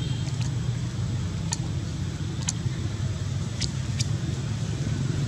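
A steady low engine rumble throughout, with a few short high chirps or clicks scattered through the middle.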